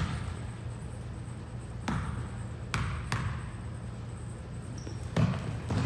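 Basketball bouncing on a gym floor: about six sharp thumps at uneven intervals, with a short high squeak near the end.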